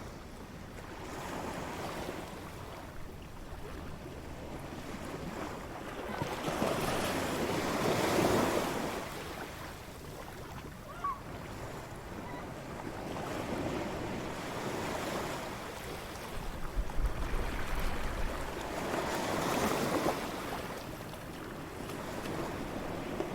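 Surf on a beach, waves rushing in and breaking in slow surges every five or six seconds, the biggest about eight seconds in. Light wind runs under it.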